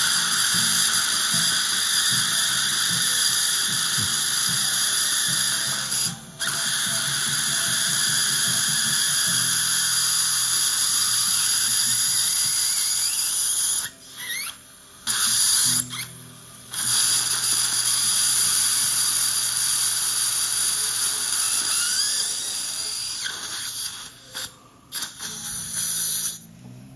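Surgical implant handpiece drilling into the jawbone at an implant site, with water irrigation and suction: a steady high whine with a squeal. It stops briefly a few times and winds down near the end.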